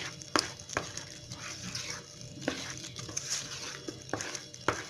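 Wooden spoon stirring thick, sticky pão de queijo batter in a stainless steel bowl, with several sharp knocks of the spoon against the bowl among the wet stirring noise.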